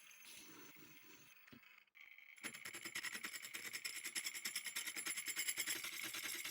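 A small machine tool starts up about two and a half seconds in and runs steadily, with a rapid, even chatter and a steady high whine.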